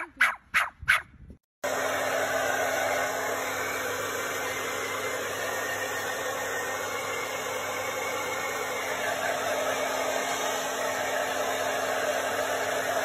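A few sharp barks from small Pomeranian dogs. About a second and a half in, they cut off and a hair dryer starts running steadily with a faint hum.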